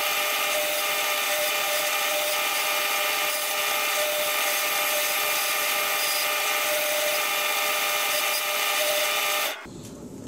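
Bench drill press running at a steady speed with a felt polishing wheel in the chuck: a constant motor whine that holds unchanged, then stops abruptly near the end.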